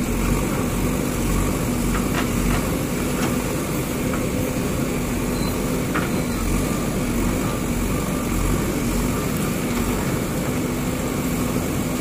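JCB backhoe loader's diesel engine running steadily while the backhoe arm works, with a few faint knocks.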